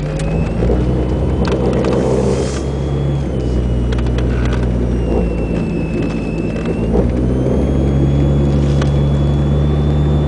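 Chevrolet Cavalier driving, heard from inside the cabin: steady engine and road noise, with a thin high whine drifting in pitch above it and a few light clicks.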